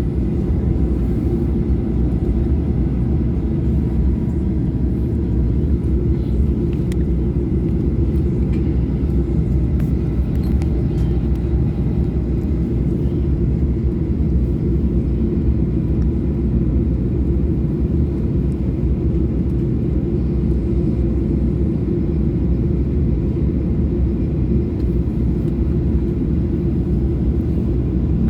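Steady low rumble inside the cabin of a Boeing 737-800 on the ground before takeoff, its CFM56 engines at idle, with faint steady whining tones above the rumble.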